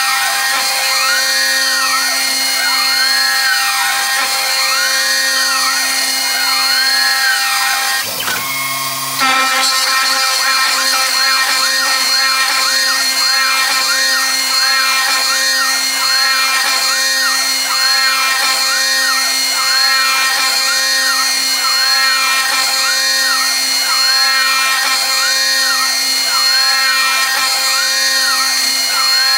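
CNC router spindle milling a circular hole in aluminium plate with an end mill, conventional milling at 826 mm/min feed and 0.5 mm depth of cut. A steady high whine carries a cutting tone that rises and falls about once a second as the tool circles. About eight seconds in, the cut briefly drops away, then resumes with a louder hiss and a slightly quicker cycle.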